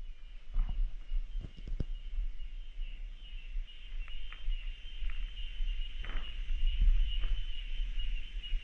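Cicadas calling in a steady, high-pitched drone, over a low rumble on the microphone, with a few scattered soft knocks and rustles.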